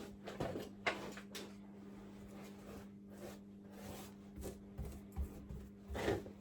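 Faint, scattered scrapes and taps of hand work on a fire-stopping seal, over a steady low hum.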